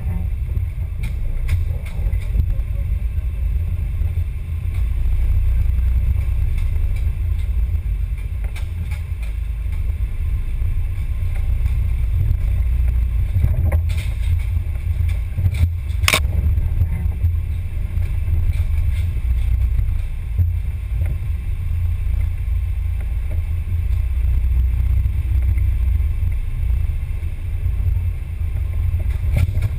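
Onboard sound of a scale RC crawler driving over a dirt trail: a steady low rumble through the body-mounted camera, with small knocks and one sharp crack about sixteen seconds in.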